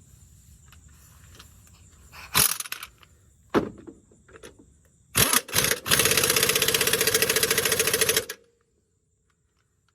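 Impact wrench running down the last motor-mount nut: a few short blips, then a couple of seconds of steady fast hammering that cuts off suddenly.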